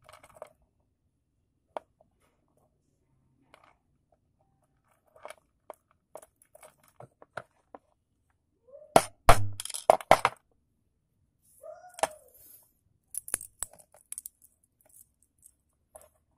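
Scattered sharp metallic clicks and taps of a metal link watch band and its pins knocking against a steel pin block as links are taken out. The loudest run of clicks, fast and close together, comes about nine to ten seconds in, with a second shorter run around thirteen seconds.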